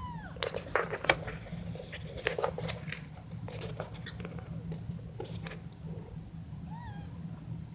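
A week-old kitten gives a short high mew at the start and another, smaller one near the end, over soft rustling and clicks as the litter and the mother cat shift about on the blanket.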